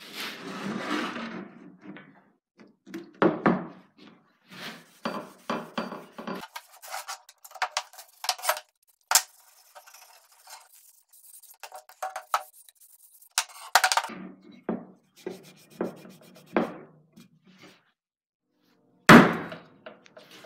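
Cloth rag wiping boiled linseed oil onto a wooden ash hatchet handle, with scattered rubbing and handling noises. Near the end comes one loud, sharp knock as the hatchet is set down on a wooden block.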